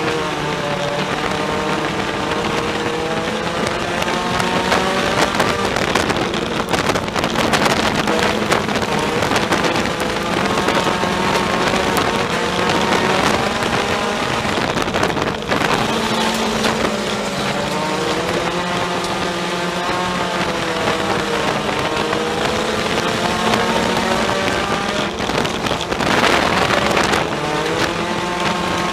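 A Ford Focus sport compact race car's four-cylinder engine, heard from inside the cockpit, its revs climbing and falling again and again as it laps. A louder rush of noise comes near the end.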